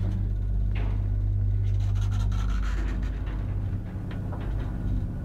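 Old ZREMB passenger lift car travelling in its shaft: a steady low electric hum from the lift drive, with a few faint clicks and knocks. About three seconds in, the hum wavers and turns rougher.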